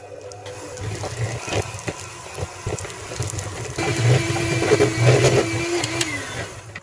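Electric hand mixer running, its beaters creaming softened butter in a bowl, with scattered knocks. A higher motor whine comes in just under four seconds in, dips near the end, and the mixer then cuts off.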